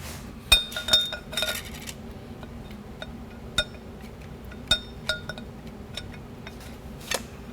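Steel clutch plates clinking and ringing as they are set into the splines of a 4L60E transmission's forward clutch pack in the input drum. A string of sharp metallic clinks, the loudest about half a second and a second in, then single clinks every second or so.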